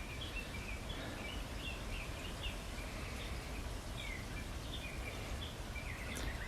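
Small birds chirping intermittently: short, high calls scattered throughout, including one brief falling note near the middle. Beneath them is a steady low background rumble.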